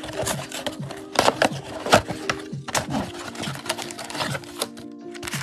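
Cardboard trading-card box being opened and handled by gloved hands: a quick run of sharp clicks, taps and scrapes as the flap is pulled back and the packs come out.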